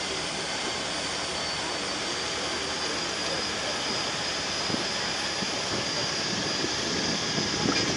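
Boat motor running steadily under way: a continuous engine noise with a thin, steady high whine over it.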